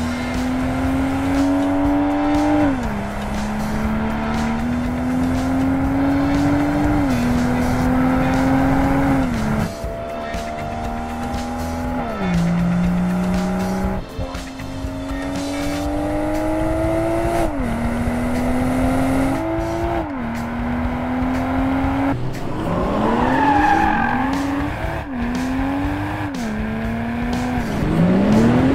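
BMW 2 Series Coupé engine and exhaust under hard acceleration through the gears: the pitch climbs steadily and drops sharply at each upshift, every two to three seconds. Near the end the revs rise and fall in several quicker, shorter sweeps.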